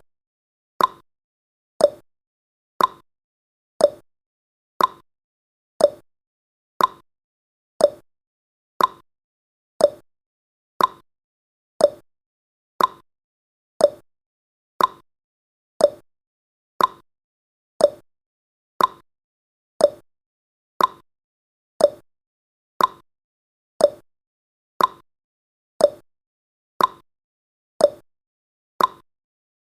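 Clock-style ticking sound effect of a countdown timer, one sharp tick every second, alternating slightly higher and lower like a tick-tock.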